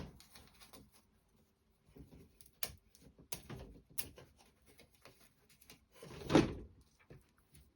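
Small wooden clock-kit parts clicking and tapping as they are handled on the work surface, with a single louder knock about six seconds in.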